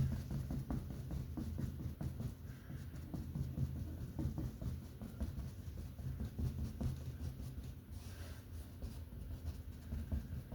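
Paintbrush working acrylic paint onto canvas, a steady run of short scratchy strokes, with a low steady hum underneath.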